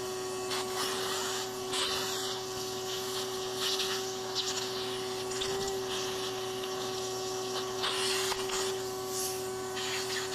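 Shop vacuum running with a steady whine while its nozzle cleans dirt and grit out of a sliding door's bottom track. Short scraping, rattling bursts come several times as debris is sucked up.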